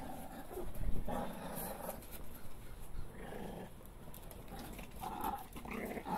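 Shih Tzu puppies growling and yipping as they play-fight, in several short bursts, the loudest about a second in.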